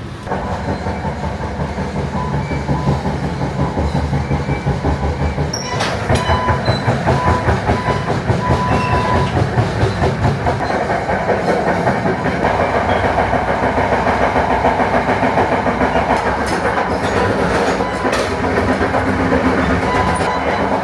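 Commuter train running on the rails, a dense rumble with a fast rhythmic clickety-clack throughout. A thin high tone sounds in short broken pieces for a few seconds near the middle.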